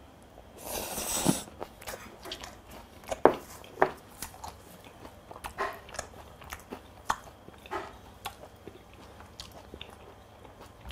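Close-up chewing of a mouthful of seasoned raw pork (pork yukhoe). There is a brief rushing noise about a second in, then scattered wet clicks and smacks of the mouth as he chews.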